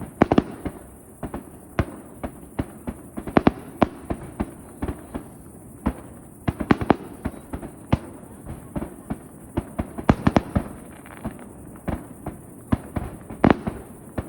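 Aerial fireworks display: a rapid, irregular barrage of shell bursts and bangs, a few every second. Heavier clusters of bangs come near the start, about three and a half seconds in, around ten seconds and near the end.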